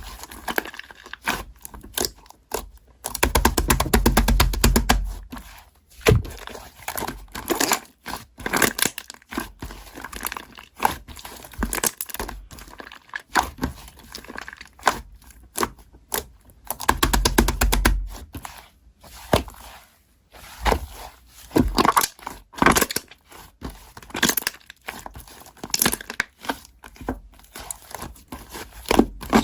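Slime being pressed and squished by hand close to the microphone, giving a steady stream of crackling, popping clicks and crunches. Twice, around three seconds in and again about seventeen seconds in, the crackle thickens into a dense squelching run with dull thumps.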